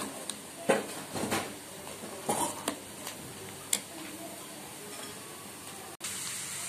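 A spoon stirring thick haleem in an aluminium pressure cooker, with a series of irregular knocks and scrapes against the pot. About six seconds in, it cuts to sliced onions sizzling steadily in hot oil.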